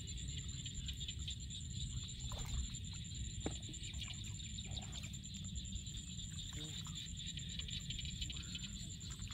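Bare hands digging and scooping in wet mud at the water's edge, with short scattered squelches and splashes. Behind them runs a steady high-pitched pulsing drone and a low rumble.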